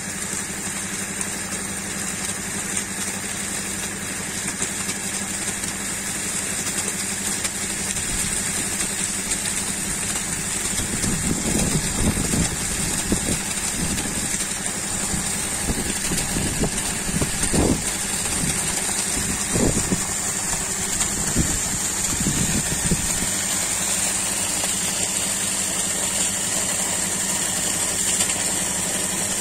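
Air compressor of a compressor-driven borewell running with a steady hum, while water gushes from the black discharge pipe with a steady hiss. Through the middle of the stretch, irregular low surges come and go.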